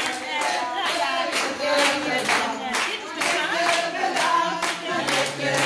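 A group clapping in time, about two claps a second, while several people sing together.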